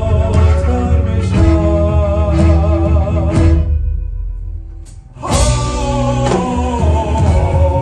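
A live band plays: electric and acoustic guitars, accordion, double bass and drum kit, with a male voice singing. About three and a half seconds in, the band drops out for a break of about a second and a half. Then everyone comes back in together on a loud hit.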